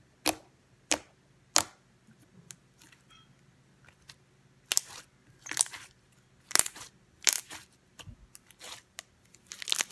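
Freshly made, still slightly sticky white glue-and-borax slime being kneaded, pressed and pulled by hand, giving off irregular pops, clicks and short tearing squelches, with a quieter stretch about two to four seconds in.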